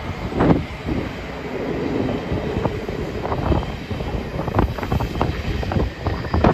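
A DB Intercity train of passenger coaches, hauled by a class 101 electric locomotive, passing at speed: a steady rail rumble with many sharp wheel clicks over rail joints.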